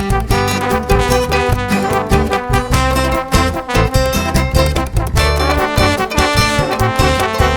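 Upbeat background music with brass instruments and a steady swing beat.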